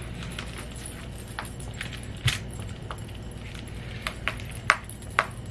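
Sharp little clicks and taps from handling a phone and its plastic accessories by hand: one a little past two seconds in, then several in quick succession near the end, over a steady low hum.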